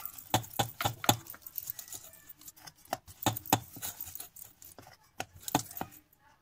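Stainless-steel rolling pin rolling out poori dough on a steel board, clicking and knocking against the metal a few times a second at an uneven pace.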